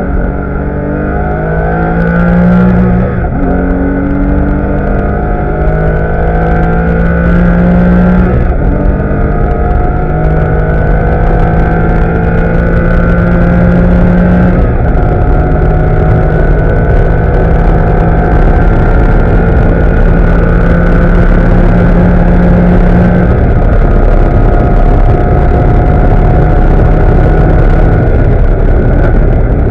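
Porsche Cayman S flat-six engine heard from inside the cabin, under full throttle and pulling up through the gears. Four upshifts each drop the pitch, and after each one the note climbs slowly again. The note eases near the end as the driver lifts off to brake.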